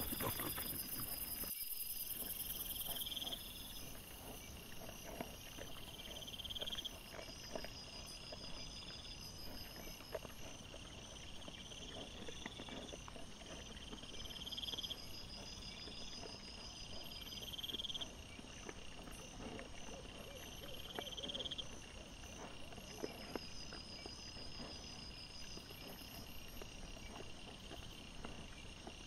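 Night insects chirping in short repeating trills that swell and fade about every two seconds. Faint scattered rustles and clicks come from wild boar and their piglets foraging on the ground.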